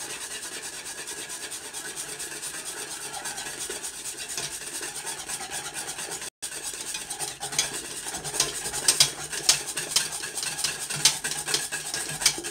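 A plastic scraper scraping thick batter from a metal mixing bowl into a pot of near-boiling milk, over the steady sizzle of the hot milk. The sound cuts out for an instant about halfway, and after that the scraping gets louder, with sharp scrapes and ticks against the bowl.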